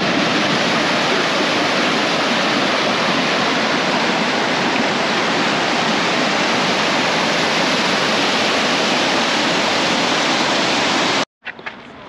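Steady, loud rush of a waterfall, an even roar of falling water with no rhythm to it. It cuts off suddenly near the end.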